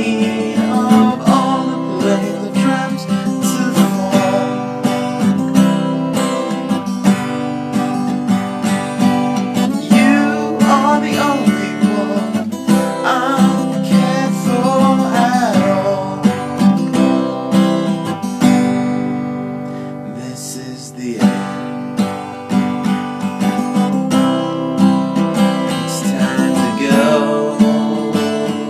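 Acoustic guitar strumming in an instrumental stretch of a song, with a softer passage about two-thirds of the way through.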